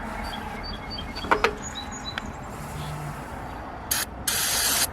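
Aerosol brake cleaner sprayed into a dirty wiring connector to blast out old dust: a brief hissing squirt about four seconds in, then a longer spray of about half a second. A single knock comes about a second in, over a steady low rumble of road traffic.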